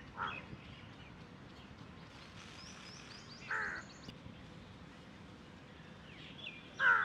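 Jungle crow (large-billed crow) cawing three times, single calls about three seconds apart, the last one the loudest.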